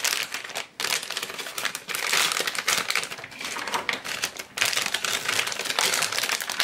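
Metallised anti-static bag crinkling and rustling as hands unwrap a graphics card from it, in irregular crackles with a brief lull under a second in.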